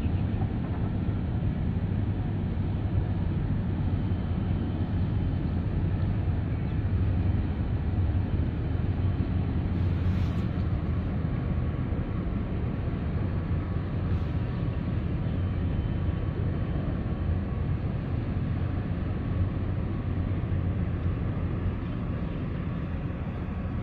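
Steady low rumble of a large container ship's engines as it sails out past the harbour wall.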